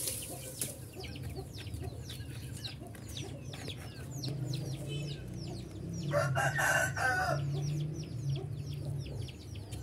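Domestic chickens: a rooster crows once about six seconds in, lasting about a second, over a steady run of quick high cheeps and clucks.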